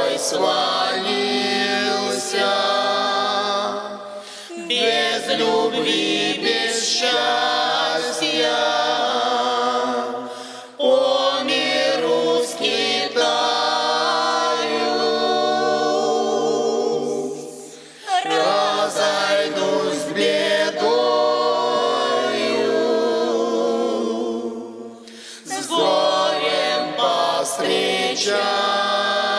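Russian folk choir singing a cappella, in long sustained phrases with short breaks between them about every six to seven seconds.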